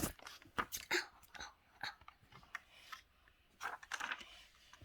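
Faint, irregular clicks and small crackles, a dozen or so short ticks scattered unevenly with no steady rhythm.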